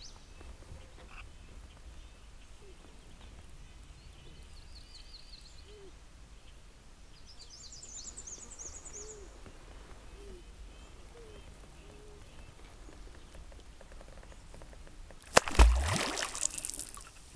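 A beaver slaps its tail on the water near the end: one sharp smack and a splash that dies away over about a second and a half, the beaver's alarm signal. Before it, small birds chirp faintly.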